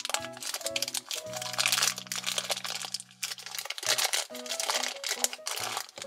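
Thin clear plastic bag crinkling and rustling as a small plastic toy figure is worked out of it, over light background music.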